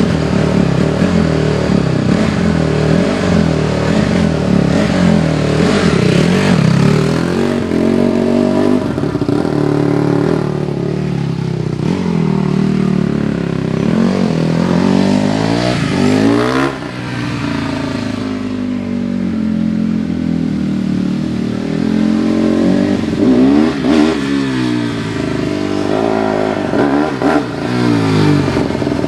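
Honda CRF150R dirt bike's freshly rebuilt single-cylinder four-stroke engine being ridden, its revs climbing and dropping again and again through the gears, coming close near the end.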